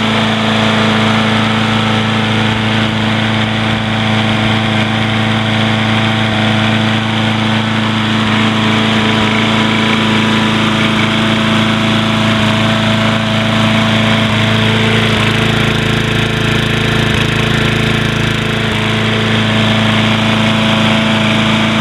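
Troy-Bilt push mower's 6.5 hp Briggs & Stratton single-cylinder four-stroke engine running steadily at constant speed without cutting out, running a little rough.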